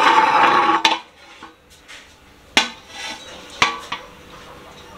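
A metal cooking pot and its lid being handled as the finished curry is taken off the stove. A loud scraping rattle in the first second ends in a click, then two sharp clanks ring briefly about a second apart, past the middle.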